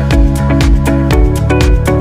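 Background music: an electronic track with a steady, quick beat and a bass line.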